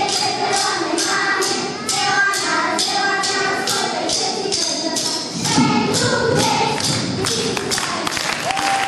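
Children singing a folk song together over a steady beat of sharp taps, about three a second. Near the end a held, wavering high note comes in.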